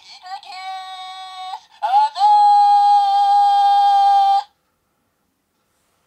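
DX Grease Blizzard Knuckle toy playing a recorded voice line through its small speaker in serif mode: a short spoken bit, then a long drawn-out cry. The cry rises and holds one steady pitch for over two seconds, louder toward the end, and cuts off suddenly about four and a half seconds in.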